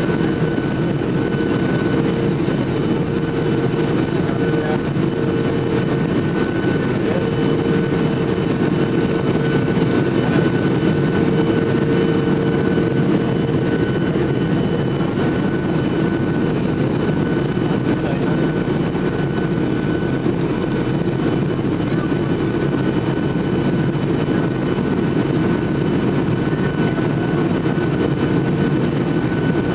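Steady in-flight cabin noise of a Boeing 737, heard from a window seat beside the wing: a low rush of engine and airflow with a faint steady whine above it.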